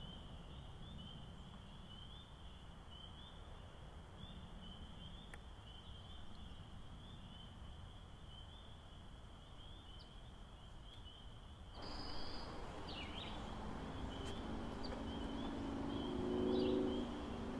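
Faint, steady chorus of rapidly repeating high-pitched chirps from calling animals at night. About twelve seconds in, louder outdoor ambience with a few bird calls joins it, and a low hum comes near the end.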